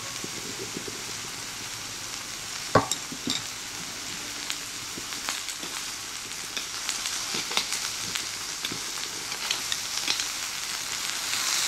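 Mutton sizzling on a hot jingisukan grill plate: a steady hiss with many small spitting crackles, growing a little louder near the end. A sharp click sounds about three seconds in.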